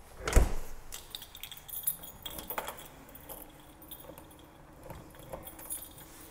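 A heavy thump about half a second in, then keys jangling and clinking on and off.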